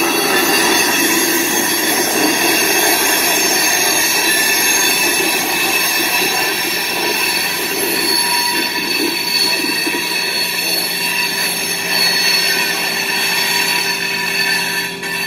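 Loaded covered hopper cars rolling slowly on the rails, their steel wheels squealing with many high, steady tones.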